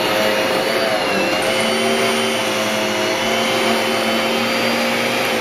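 Canister vacuum cleaner motor running steadily, with a high whine over its rushing airflow.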